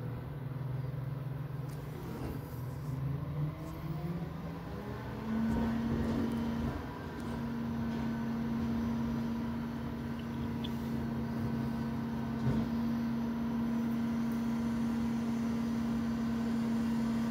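Freightliner SD trash truck's diesel engine running at idle, then revving up between about two and five seconds in and holding a steady higher speed, as the throttle advances to drive the McNeilus rear loader's hydraulic packer. Heard through window glass.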